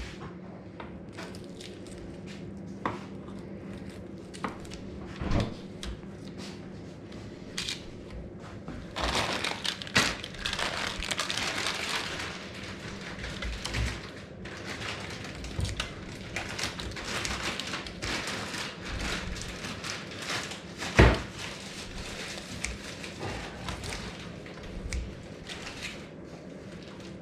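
Kitchen handling sounds: crinkling and crackling with scattered clicks, denser about nine to thirteen seconds in, and a single knock about 21 seconds in, over a steady low hum.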